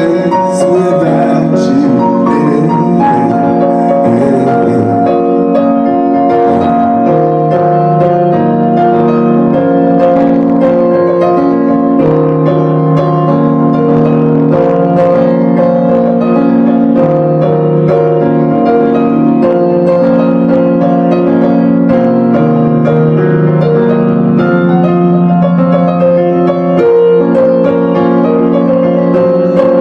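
Experimental electronic music played live: slow, sustained keyboard chords that shift every second or two.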